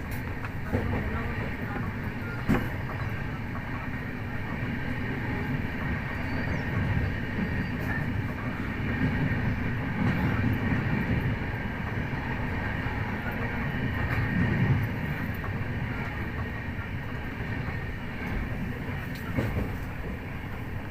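Train running on its rails: a steady low rumble, with occasional sharp clicks from the wheels over rail joints.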